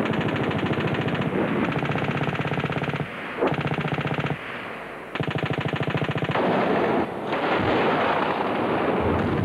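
Automatic weapons fire. There are several long bursts of rapid shots with short pauses between them, then denser, overlapping firing over the last few seconds.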